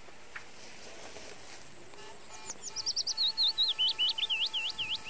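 A bird singing: starting about two seconds in, a fast run of high notes that drops in pitch and slows into looser, up-swept notes.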